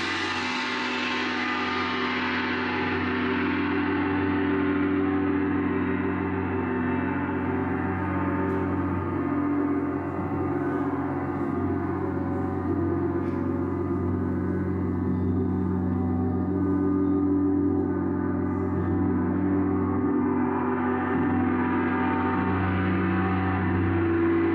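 Jupiter planetary gong ringing in a sustained, dense wash of many overtones, with no separate strikes heard. Its bright upper shimmer fades over the first few seconds and swells back near the end.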